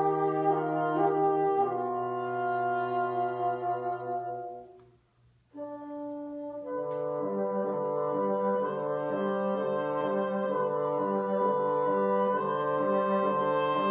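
Wind and brass octet (flute, clarinet, two bassoons, two trumpets, two trombones) playing sustained chords that die away to a short silence about five seconds in, then come back in suddenly. From about seven seconds a low repeated figure pulses under held chords.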